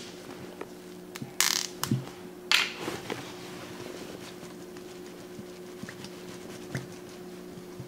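Ketchup being squeezed from a plastic squeeze bottle: two short sputtering squirts about a second and a half and two and a half seconds in, then a few faint ticks, over a steady low hum.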